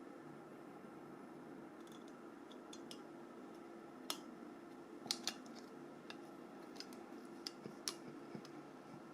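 Small sharp clicks and taps of tiny mobile-phone parts being handled and fitted during reassembly, scattered and irregular, the clearest about four seconds in and a pair just after five seconds, over a faint steady hum.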